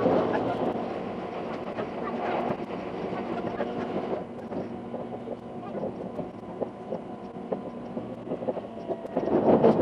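Electric limited express train running, heard from inside the car: steady running noise with scattered wheel clicks over the rail joints, swelling louder near the end.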